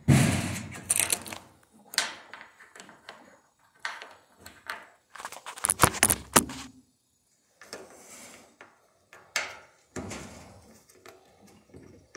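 Irregular knocks, clunks and rattles of a Whirlpool washer's cabinet and suspension parts being handled during a strut replacement. The clatter is loudest at the start and again about six seconds in, with scattered single knocks after.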